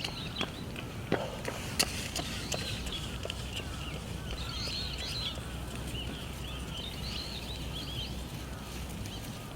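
Small birds chirping and twittering over steady outdoor background noise, with a few sharp clicks or taps in the first two seconds.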